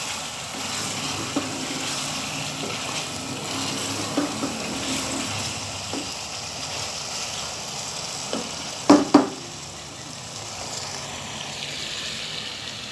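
Chicken and tomato masala sizzling in a pan as it is fried and stirred, a steady hiss. A few sharp clacks break through, the two loudest close together about nine seconds in.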